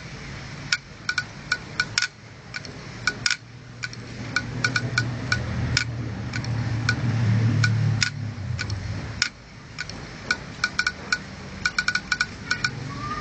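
Opened 2.5-inch IDE laptop hard drive clicking over and over, its read/write head arm swinging and knocking in quick clusters of two or three sharp ringing clicks: the repetitive clicking of a failing drive. A low motor hum swells in the middle and cuts off about nine seconds in.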